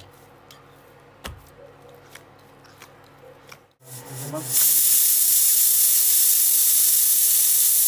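Faint sounds of dough being kneaded by hand, then after a cut a loud, steady hiss begins about four and a half seconds in.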